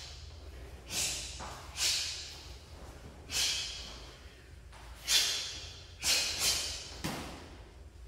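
Sharp, hissing exhalations forced out with the techniques of a karate form: about seven short breaths, three of them close together near the end.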